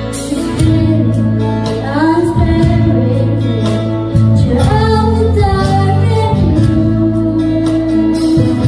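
A young girl singing a solo line of a worship song into a microphone, over steady instrumental accompaniment; her voice comes in about two seconds in.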